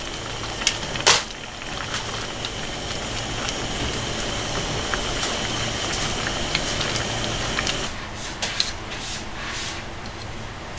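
Gnocchi in a thick soy-milk cream sauce simmering in a frying pan on a gas stove: a steady hiss with a low hum, broken by one sharp click about a second in. Near the end come a few light clicks and taps as cherry tomatoes are set into bowls of salad.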